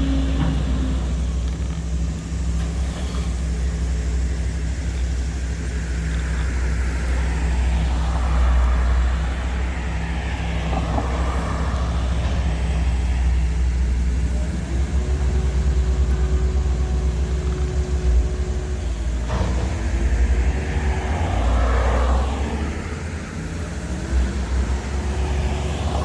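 Diesel engine of a Mack front-loader garbage truck running steadily, with a steady whine that comes in about halfway, breaks off, and returns near the end.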